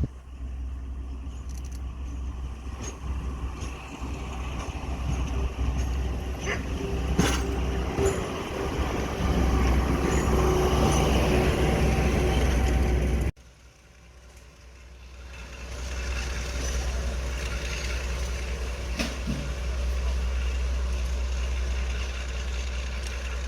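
Heritage diesel locomotive engine running, a deep steady rumble that grows louder toward the middle. It cuts off abruptly about thirteen seconds in, then builds back up over the next few seconds.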